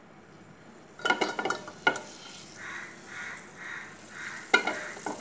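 Butter sizzling as it melts and foams in a stainless-steel pot while a spoon stirs it. The spoon clinks and scrapes against the pot in a quick burst about a second in, then swishes round regularly, with another clink near the end.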